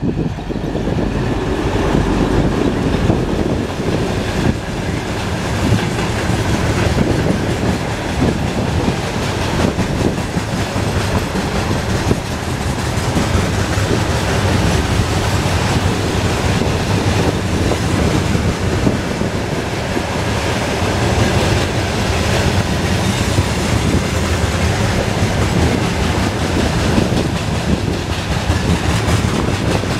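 A 2TE10M twin-section diesel locomotive passing close by in the first seconds, then a long coal train of open gondola wagons rolling past. The sound is a loud, steady rumble of wheels on rail with clickety-clack from the wheels crossing rail joints.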